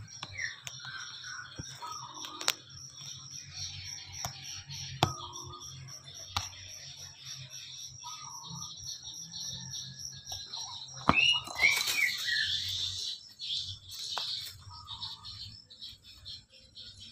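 Kittens playing close to the phone: scattered knocks and scuffs, and a louder stretch about eleven seconds in with short, falling high squeals. A steady, pulsing high-pitched chirping runs underneath.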